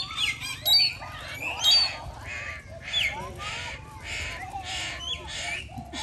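Parrots calling: sharp whistled squawks that glide in pitch over the first two seconds, then a run of harsh screeches about twice a second, with softer chattering calls underneath.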